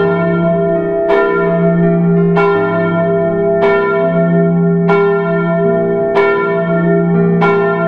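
Bell tolling at a steady pace, about one strike every second and a quarter, each strike ringing on over a held low chord.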